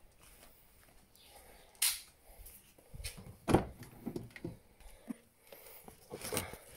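A car's rear door is unlatched with a sharp click about two seconds in and swung open, followed by knocks and the rustle of bags being handled on the back seat.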